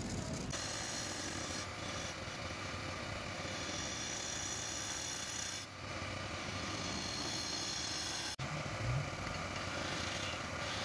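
Wood lathe running while a turning chisel cuts into the face of a spinning wooden disc, a steady scraping hiss of wood being shaved away, broken off abruptly a couple of times.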